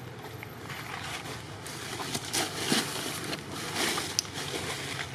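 Outdoor ambience: a steady hiss with scattered short rustles and clicks, the loudest about two and a half to four seconds in.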